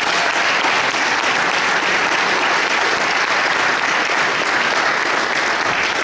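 Audience applauding steadily, dense clapping from a crowd.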